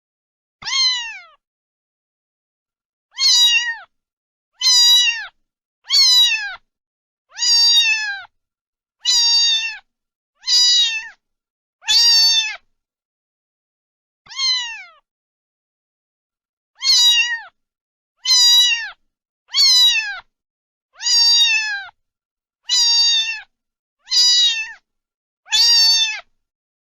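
Domestic cat meowing over and over: about sixteen short meows, each falling in pitch, spaced one to two seconds apart, with a longer pause about halfway through.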